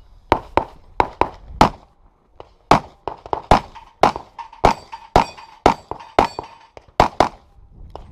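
Rapid pistol fire from a competitor shooting a practical pistol stage: about twenty shots, mostly in quick pairs (double taps), with a brief pause about two seconds in.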